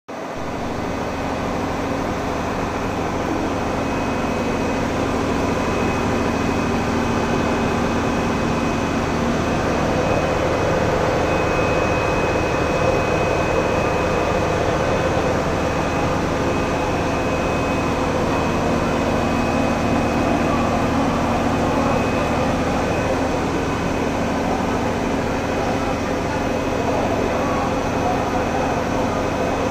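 Steady drone of running machinery, with a thin high whine and a broad hiss over it, unchanging throughout.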